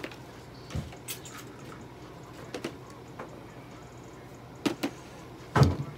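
Scattered light clicks and knocks of objects being handled, with a dull thump just under a second in and a louder knock near the end, over a low steady equipment hum.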